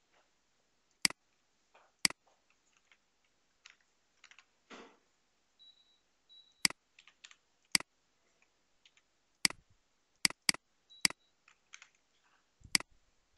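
Single sharp clicks of a computer mouse at irregular intervals, about nine in all, with quieter keyboard taps between them. A few very short, faint high beeps come around the middle.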